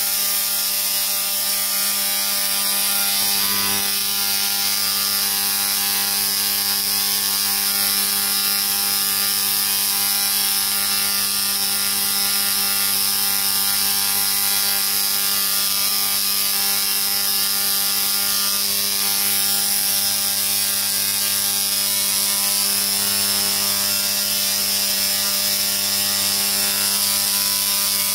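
A 350 W spark-gap Tesla coil firing continuous arcs from its toroid into the air. It makes a loud, steady, rasping buzz at one fixed pitch that does not change.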